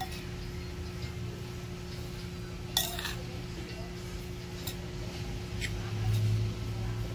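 A few sharp clinks of a utensil against a bowl while chicken skin is tossed in flour, the loudest about three seconds in, over a steady low hum.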